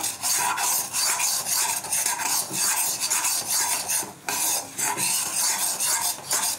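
Steel spatula scraping and stirring against a kadhai, roasting gram flour with spices in oil, in quick repeated strokes.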